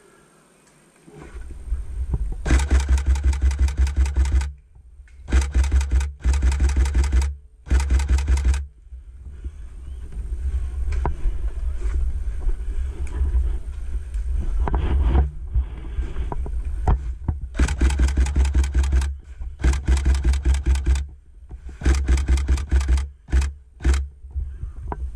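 Bursts of full-auto fire from an electric airsoft gun, a fast even rattle of shots in strings of one to two seconds. Four bursts come close together, then a lower, busier stretch, then several more bursts that get shorter near the end.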